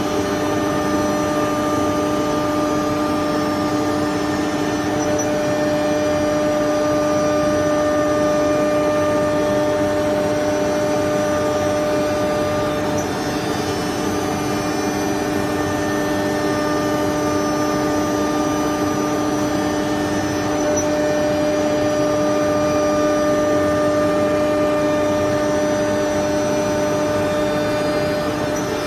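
Spindle of an RD-3512 automatic-tool-change wood CNC router running with a steady whine over a hiss, the level swelling and easing slightly.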